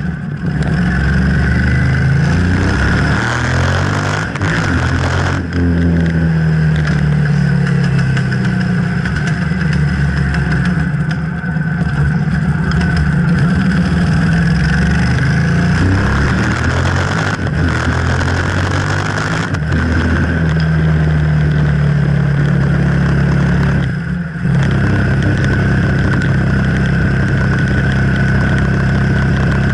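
Yamaha TDM 850 parallel-twin engine running loud and unmuffled through a short straight-through exhaust tip with no muffler or resonator, under way. Its pitch rises and falls with the throttle, with a few brief drops when the throttle is closed.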